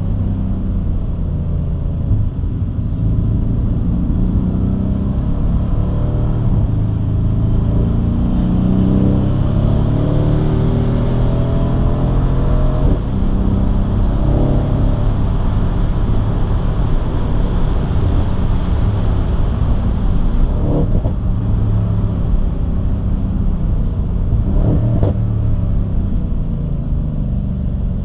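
Mercedes-AMG C 63 S's twin-turbo V8, heard from inside the cabin, pulling hard with its pitch rising and falling through the gears.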